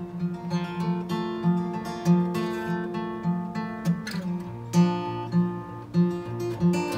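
Acoustic guitar playing an instrumental passage between sung lines: picked and strummed chords over a steady bass note, the bass moving lower about halfway through.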